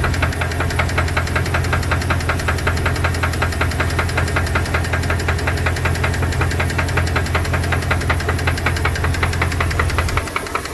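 2002 Dodge Dakota's 4.7-litre V8 running with a rapid, even ticking knock over a steady low hum, which the owner suspects is lifter noise or piston slap. The low hum falls away near the end while the ticking continues more faintly.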